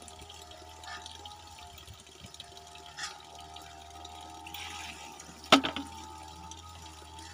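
Rat-scaring bamboo water knocker (pancurendang) with water running through it. About five and a half seconds in, the pivoting bamboo tube drops and strikes the bamboo beneath with one sharp knock that rings briefly.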